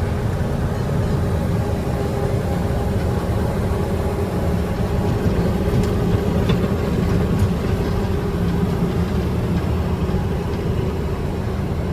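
Fendt IDEAL 9T combine running steadily under load while harvesting corn, heard from inside the cab as a constant low drone with a faint steady hum.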